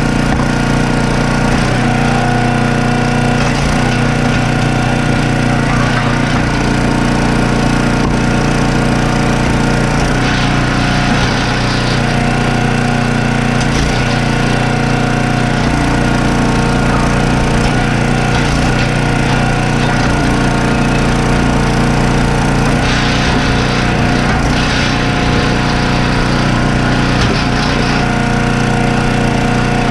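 Small gasoline engine of a firewood log splitter running steadily under varying load, its pitch shifting slightly a few times, with wood splitting against it.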